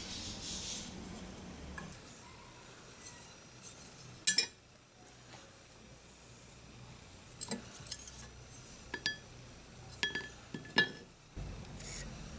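Scattered light metallic clinks and taps, some with a brief ring, as a small aluminum knife guard and the steel blade are handled and set against a steel bench plate.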